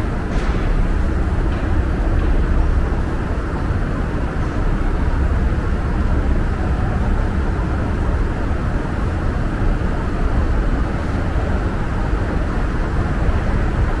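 Steady low rumble of subway station background noise, with a few faint ticks.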